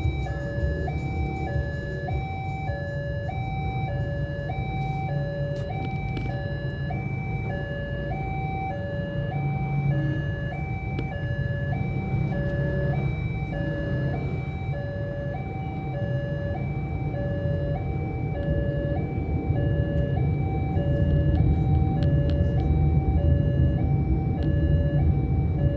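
Railway level-crossing warning alarm sounding a two-tone electronic signal, a lower and a higher tone alternating about once a second. Under it runs a steady low engine rumble that swells somewhat near the end.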